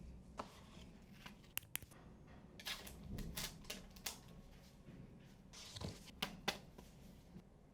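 Tablet box and packaging being handled during an unboxing: scattered light clicks and taps with short bursts of cardboard and plastic rustling.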